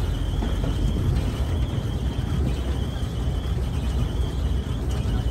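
Open-air rail cart running along the track: a steady low rumble from its motor and wheels on the rails.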